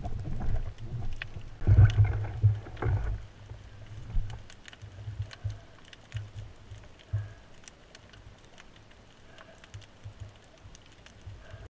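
Underwater sound picked up through a camera housing: low rumbling and sloshing of water from the diver's movements and handling, heaviest in the first three seconds and then easing to occasional bumps, with faint scattered clicks throughout.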